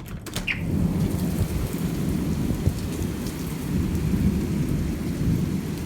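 Heavy thunderstorm downpour with a continuous low rumble. It swells over the first second and then stays loud and steady.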